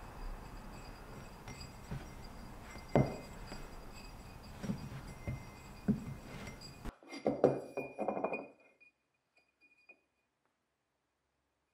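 Steel shaft knocking and clinking in the centre bush of a vintage measuring wheel's metal hub as it is rocked by hand to check the bush and shaft for wear. A few light metallic clicks come first, then a quick cluster of clinks about seven seconds in.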